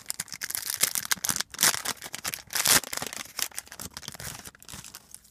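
Plastic foil wrapper of a trading-card pack being torn open and crinkled, a dense crackling rustle with a few louder rips about one and a half and two and a half seconds in.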